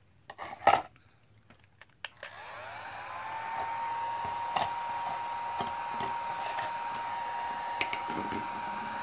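A sharp knock from handling under a second in. Then, about two seconds in, an electric heat gun is switched on: its fan spins up with a rising whine that settles into a steady tone over a rush of blowing air, and it runs on steadily with a few light clicks of handling.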